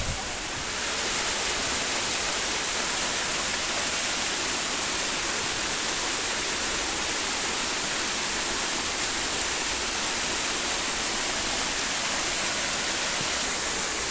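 Waterfall at Ng Tung Chai: a steady, even rush of falling water.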